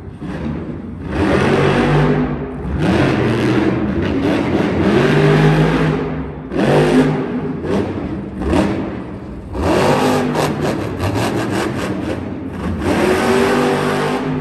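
Monster truck's supercharged V8 revving hard in repeated bursts every second or two, the pitch climbing and dropping with each blip of the throttle during a freestyle run.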